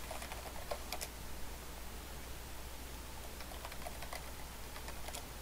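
Computer keyboard typing: a quick run of keystrokes in the first second as a login name is entered, then a few scattered keystrokes near the end as the password goes in, over a faint steady low hum.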